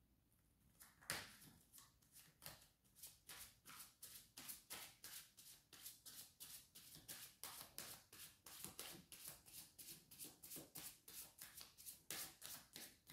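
Faint hand shuffling of a tarot deck: cards slapping and sliding together in a steady run of short strokes, about three a second, starting about a second in with one louder slap.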